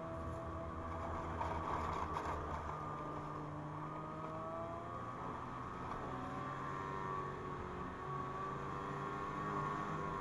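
2017 Ski-Doo MXZ 600 Carb Sport snowmobile's two-stroke twin engine running on the trail, its pitch rising and falling as the throttle changes. There is a short rush of noise about two seconds in.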